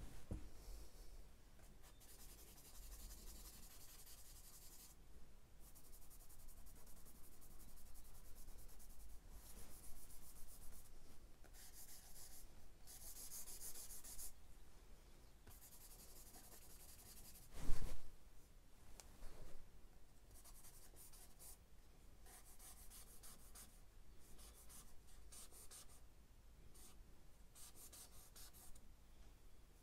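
Charcoal stick scratching and rubbing on sketchbook paper in short runs of shading strokes. A sharp knock sounds once a little past halfway, with a fainter one soon after.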